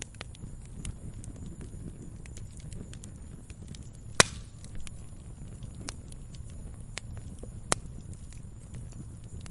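Log fire burning with a low steady rumble and irregular crackling. There are scattered small pops, a loud sharp pop about four seconds in, and another near the end.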